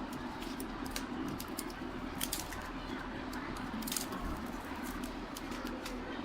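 Fan of a small dust-free clean bench for phone repair running with a steady hum, with scattered light clicks and taps from handling throughout.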